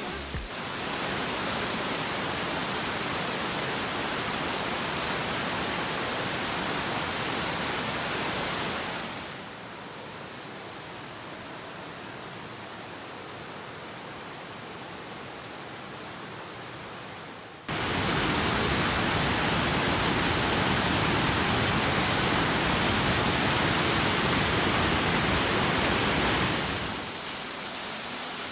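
Waterfalls rushing: a steady hiss of falling water across several clips. It drops quieter about nine seconds in, jumps louder at about eighteen seconds, and drops again near the end.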